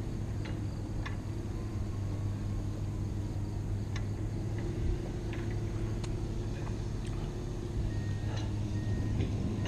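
Steady low hum of heavy construction machinery running at a bridge-building site, with a few faint clicks and two short high beeps near the end.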